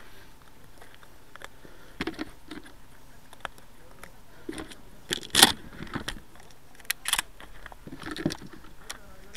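Shotgun shells clicking and rattling as they are picked out of a plastic box and loaded into a shotgun: a string of sharp clicks and knocks, the loudest about five and a half seconds in. The loading is slow and fumbled, with a shell put in backwards.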